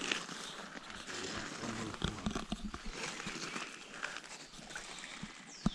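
Wading steps through shallow water over a gravel riverbed: irregular sloshing and crunching, with one sharp knock near the end.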